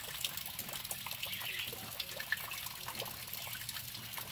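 Light rain still coming down: a steady hiss of falling rain with many small, scattered drips.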